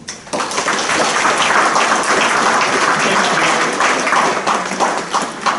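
Audience applauding, starting just after the beginning and easing off near the end.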